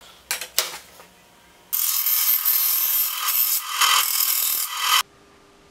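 Bandsaw blade cutting through a wenge board: a loud, rough, high-pitched rasp that starts abruptly after about two seconds and stops suddenly near the end. Before it come two brief sharp sounds.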